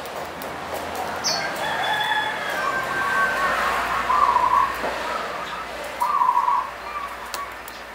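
Caged zebra dove (perkutut) singing its cooing song. A drawn-out phrase ends in two loud held notes, about four seconds and six seconds in.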